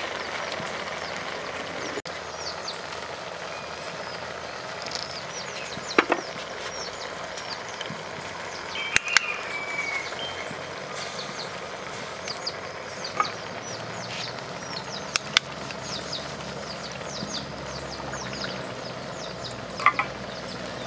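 Birds chirping, many short high chirps over a steady background hiss. A handful of sharp pops cut through at intervals; the loudest come about six and nine seconds in, with more around thirteen, fifteen and twenty seconds.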